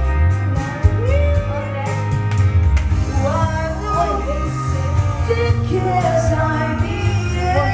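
Singing over loud backing music with a heavy bass beat, typical of karaoke.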